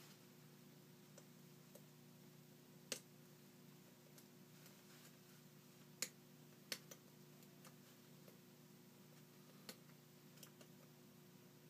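Scattered light clicks of lock picks working in a Bilock lock cylinder, with two sharper clicks about three and six seconds in, over a faint steady hum.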